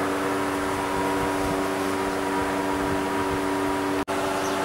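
Steady machinery hum with several held tones over an even whirring noise, at a constant level, breaking off for an instant about four seconds in.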